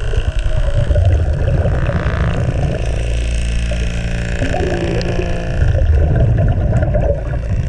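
Sound heard underwater beside a boat hull: a steady low mechanical hum with irregular gurgling bubble noise over it.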